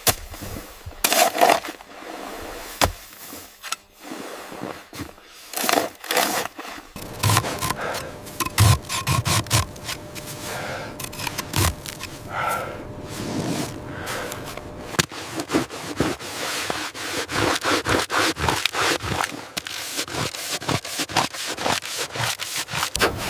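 Repeated scraping strokes, irregular at first, then a fast, dense run of strokes through the last several seconds.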